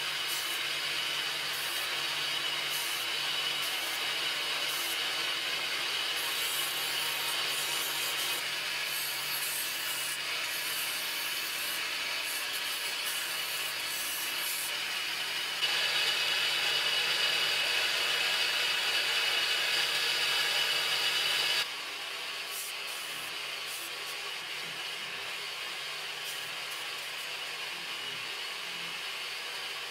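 Bench grinder with a homemade belt-sander attachment running, its abrasive belt sanding a piece of wood pressed against it. The sanding gets louder for several seconds past the middle, then drops back to a steadier, quieter running sound.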